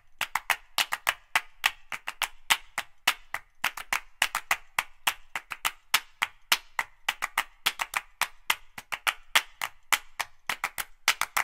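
Background music made of dry, rapid percussive clicks like a wood block, several a second in an uneven pattern, with nothing else sounding between them.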